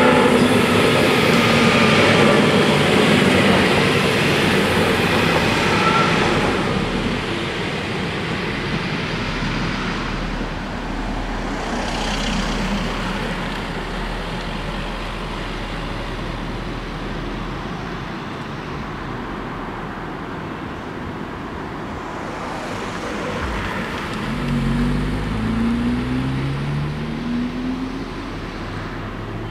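Siemens Desiro diesel railcar passing close by through a level crossing, loudest in the first few seconds and fading by about six seconds in. Road traffic noise follows, and near the end a road vehicle speeds up, its engine note rising in three steps as it changes gear.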